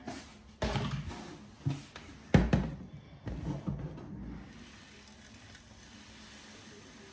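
A few knocks and clattering of objects being handled, the loudest about two and a half seconds in, then a faint steady hiss.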